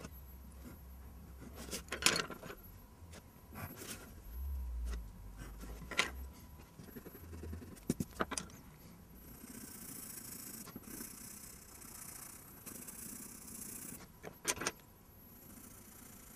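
Drawing tools handled on paper: a few sharp knocks and clicks as a plastic set square and pencils are set down and moved. Then, from about nine seconds in, a coloured pencil scratches over the paper in strokes as it shades.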